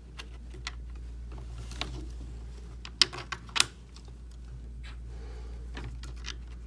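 Small metal screws clicking and ticking as they are set into their holes and turned with a hex driver, with three sharper clicks about three seconds in, over a steady low hum.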